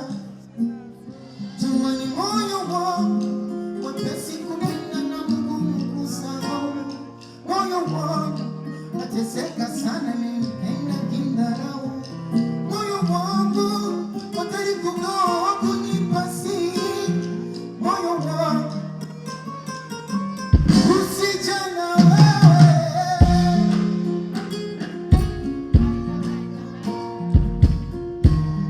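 Music with a singing voice over guitar and bass notes; heavy low beats come in about two-thirds of the way through.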